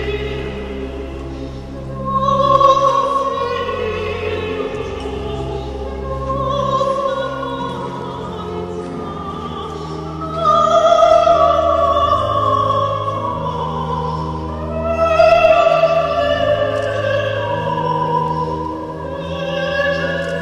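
Operatic singing in long, slow phrases with wavering held notes over classical accompaniment with long held bass notes, swelling louder a few times.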